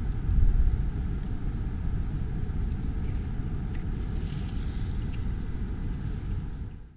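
Wind buffeting the microphone as a low, uneven rumble, with grass rustling for a couple of seconds from about four seconds in as the camera is pushed close into the grass. The sound cuts off suddenly at the end.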